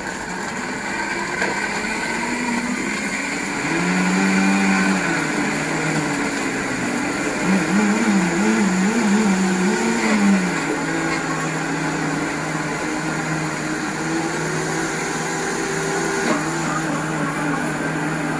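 High-powered countertop blender running, blending a coconut milkshake. The motor's pitch wavers up and down as the contents churn, most unsteadily about halfway through.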